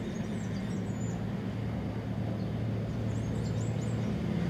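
Small birds chirping in short, quick high notes, a few near the start and again about three and a half seconds in, over a steady low hum.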